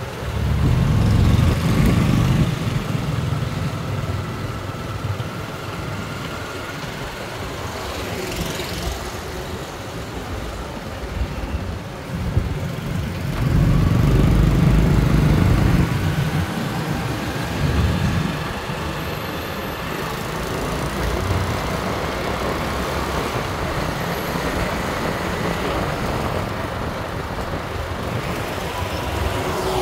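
Street traffic, with engine noise rising and falling as vehicles pass close by, loudest about a second in and again about halfway through.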